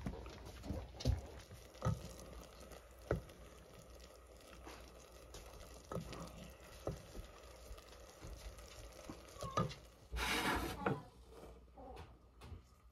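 Scattered light knocks and scrapes of a utensil stirring cooked instant jjajang noodles in a pot, with a brief hiss about ten seconds in.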